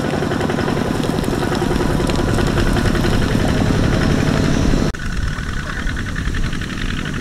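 Single-cylinder diesel engine of a two-wheel walking tractor running under load, hauling a loaded trailer through deep mud, with a fast steady chugging. About five seconds in, the sound changes abruptly to another such tractor engine, duller and with less of its middle range.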